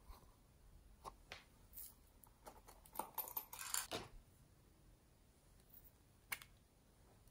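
Faint scattered clicks and rustles of small plastic containers and a zippered pouch being handled, with a louder rustle about three to four seconds in and a single sharp click near the end.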